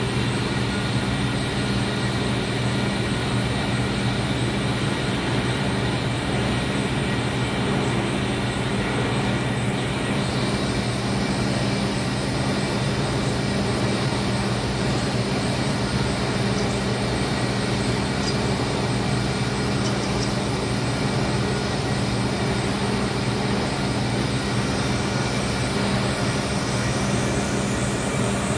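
Steady machine hum with an even hiss, holding a constant level, and a faint high whine that rises near the end.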